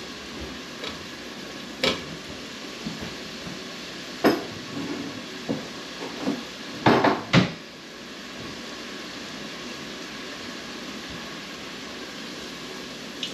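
Kitchen clatter of pans and utensils: a few sharp knocks and clinks, the loudest two close together about seven seconds in, over a steady sizzle of red wine reducing in a hot pan of sautéed vegetables.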